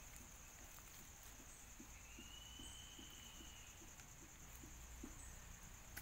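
Near silence: faint outdoor ambience with a steady high-pitched insect drone, a faint low pulsing two or three times a second, and one faint drawn-out whistle around the middle.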